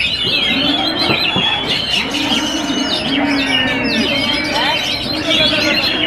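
Several oriental magpie-robins (kacer) singing at once: a dense, continuous tangle of overlapping whistles, rapid chirps and harsh squawky notes.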